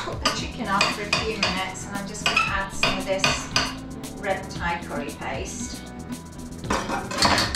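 Kitchen knife chopping vegetables on a chopping board: a continuous run of irregular sharp knocks, several a second.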